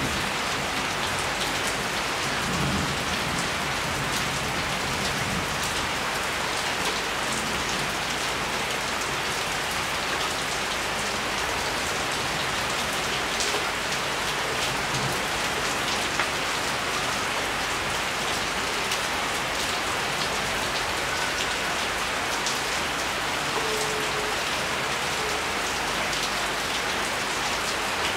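Steady rain, an even, dense hiss of falling drops.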